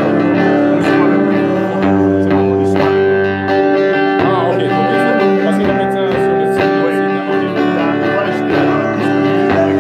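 Live praise and worship music: a guitar-led accompaniment with long held chords, and a man's singing voice amplified through a handheld microphone.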